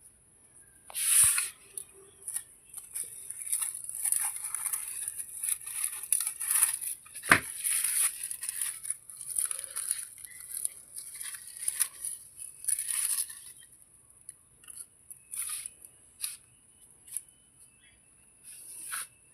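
Grass and weeds being pulled and torn, irregular rustling and tearing with a sharp snap about seven seconds in.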